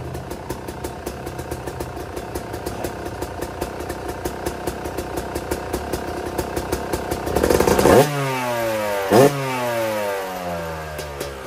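2019 Yamaha YZ250X two-stroke engine, freshly rejetted with a JD jetting kit, idling with a fast, even beat. About eight seconds in it is revved hard, then again about a second later, and the revs fall away after each blip.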